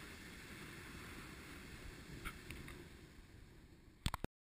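Faint low rumbling beach ambience of wind and distant surf, with a couple of soft ticks midway. Near the end come two short clicks, then the sound cuts off to silence.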